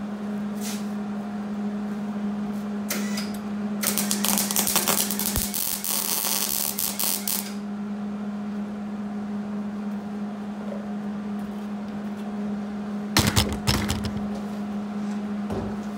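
MIG welder arc crackling for about three and a half seconds as a weld is laid on a steel angle bracket, over a steady hum. A few sharp knocks of metal being handled come near the end.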